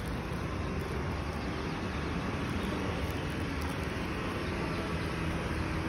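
Steady low rumble of street traffic. About halfway through, a vehicle engine's steady hum comes in.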